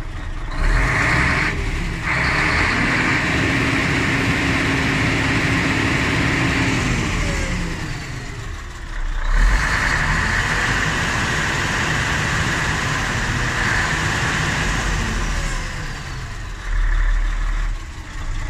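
Mercedes-Benz Actros truck diesel engine revved up and held at raised speed for several seconds, twice, dropping back toward idle between, with a short louder burst near the end, heard from inside the cab. It is run up to build air pressure, which climbs only weakly because the air compressor has lost compression.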